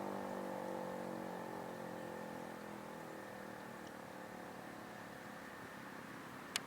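Federal Model 7B fire siren winding down at the end of its noon test blast. Its tone falls steadily in pitch and fades away over about three seconds, leaving only faint background noise. A single sharp click comes near the end.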